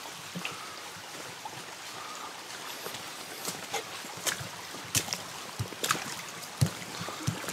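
Shallow stream running over stones, with irregular footsteps of boots splashing and knocking on the wet stones of the stream bed, coming more often and louder in the second half.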